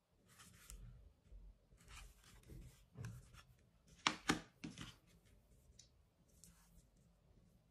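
Faint unboxing handling noise from cotton-gloved hands working a small cardboard box and its plastic parts: rubbing, rustling and light taps, with two sharper clicks about four seconds in.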